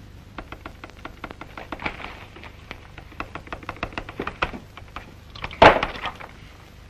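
A telegraph key tapped in quick, uneven clicks as Morse code is sent, then one loud crash near the end.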